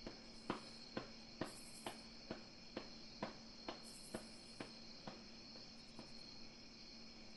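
Light, quick footsteps sound effect, eleven even steps about two a second, the first the loudest and the rest growing fainter until they stop about five seconds in, over a steady faint hiss.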